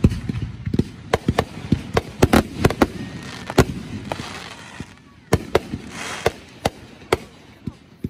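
Aerial fireworks going off: a fast string of sharp bangs through the first three seconds or so, then a short lull, then fewer, more spaced bangs.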